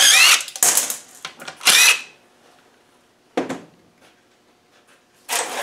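Cordless drill-driver spinning out quarter-inch UNC bolts from a gearbox cover in three short bursts, its motor whine rising in pitch each time. A single knock follows about three and a half seconds in.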